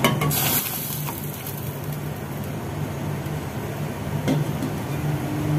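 Chicken livers and gizzards tipped from a steel bowl into a pot of boiling water, with a short splash and rattle at the start. Then a steady rushing noise with a low hum from the gas stove and the pot heating, and a single light knock about four seconds in.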